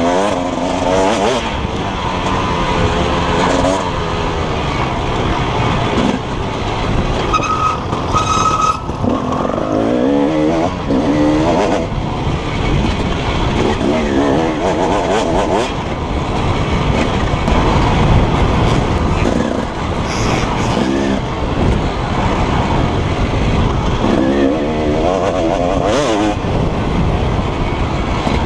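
KTM 300 EXC single-cylinder two-stroke enduro engine at race pace, revving up and dropping off repeatedly as the rider accelerates and backs off through the trail's turns.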